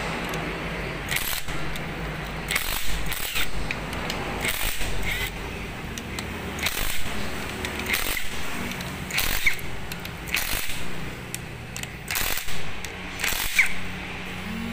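Cordless power driver with a socket running the camshaft bearing-cap bolts on a Toyota Avanza cylinder head, in short spurts about every one to two seconds.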